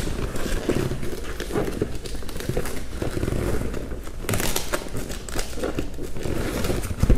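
Rustling and crinkling of a high chair's rubberized fabric seat cover being handled and tucked back onto the frame, with small clicks and knocks from the plastic seat. A longer scratchy rustle comes about four seconds in.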